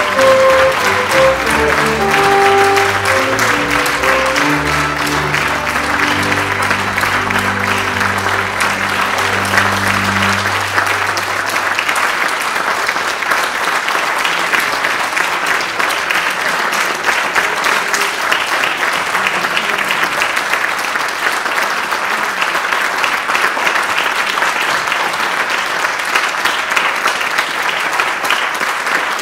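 Audience applauding steadily throughout, over a small baroque orchestra playing its closing bars, which end on a long held chord about ten seconds in; after that the applause carries on alone.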